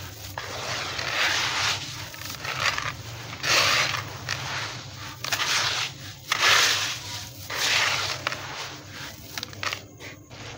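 Crunchy stone chunks being crushed and crumbling into a bowl of water: a gritty crunching and hissing that comes in surges about a second apart.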